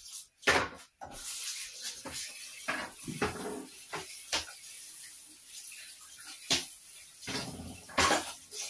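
Running water with several knocks of pots and pans.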